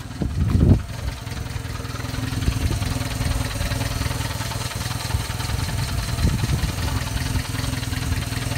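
Subaru Sambar's EN07 four-cylinder engine idling steadily, heard close at the open engine bay. There is a single loud low thump just under a second in.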